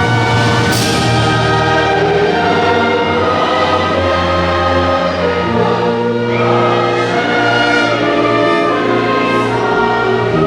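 Orchestral music with a choir singing long held chords.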